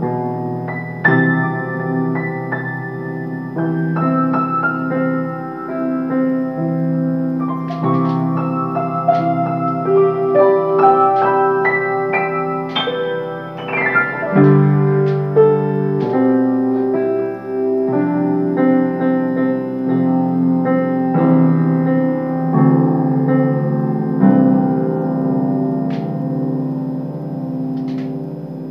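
Solo grand piano playing a composed piece, struck notes and chords ringing on, growing softer near the end.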